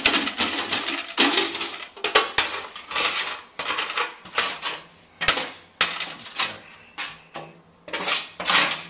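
Metal utensil scraping roasted butternut squash off a metal baking sheet into a stockpot: repeated short rasping scrapes, with a few sharp metallic clinks.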